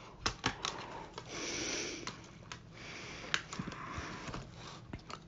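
Light plastic clicks and soft sliding rubs from the parts of a laptop LCD panel being pried apart by hand, its thin backlight film sheets shifting against the plastic frame. The clicks come singly and irregularly, with short stretches of rubbing between them.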